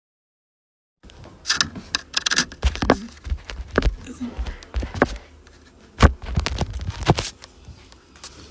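Rustling with an irregular string of sharp clicks and knocks, starting about a second in and dying down near the end.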